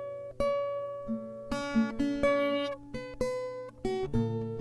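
Acoustic guitar with a capo played fingerstyle: single plucked melody notes over ringing bass notes and chords, each note struck cleanly and left to sustain.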